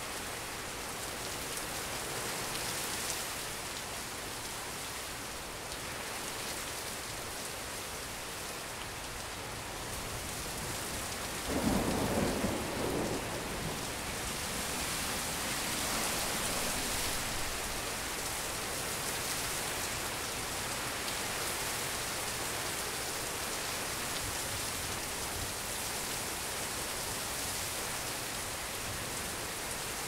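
Steady rain falling during a thunderstorm, with a sudden clap of thunder a little before halfway through, the loudest moment, lasting a second or two. The rain gets a little heavier after it.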